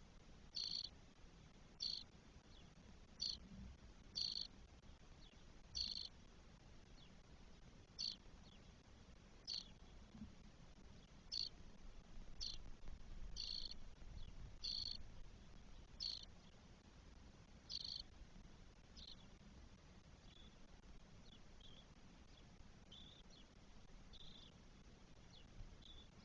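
Spotless starling nestlings calling with short, rough calls repeated about once every second or so. After about twenty seconds the calls become fainter and sparser.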